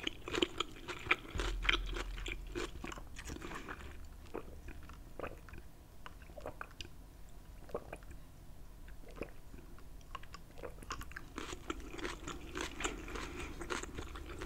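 Close-miked chewing of crunchy food: wet crunches and mouth clicks come thick at first, thin out through the middle, and pick up again near the end.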